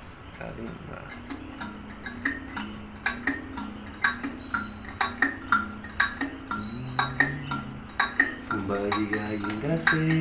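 Slow instrumental jam: sharp wooden clicks about twice a second from a small hand-held wooden percussion instrument, over low keyboard and nylon-string guitar notes that step slowly in pitch, with a steady high tone throughout.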